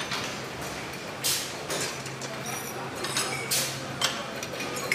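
Slaughter-line machinery: sharp metal clanks and clinks from shackles and chains, about five over the few seconds, over a steady machine hum that grows louder about two seconds in.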